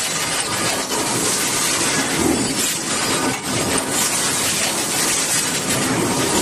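A hot-forging press line for bolts running: a loud, steady machine din with hiss, broken by scattered metallic clinks and knocks as hot steel blanks are forged and tumble down the chute.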